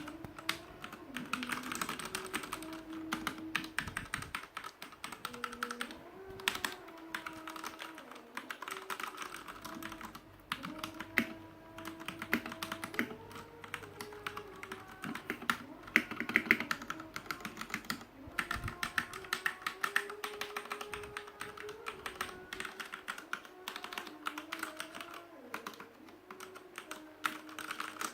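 Fast continuous typing on a Ducky One TKL mechanical keyboard with Cherry MX Red linear switches and PBT keycaps: a dense clatter of key presses with a few brief pauses.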